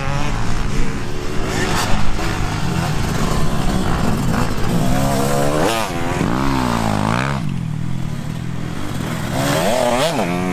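Motocross dirt bike engines revving up and down on a dirt track. One bike comes past close through a corner about halfway through, its engine note climbing steeply and then dropping away, and another rise comes near the end.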